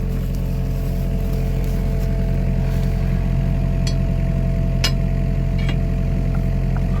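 Mini excavator's diesel engine idling steadily, with a few short sharp clicks about four to six seconds in.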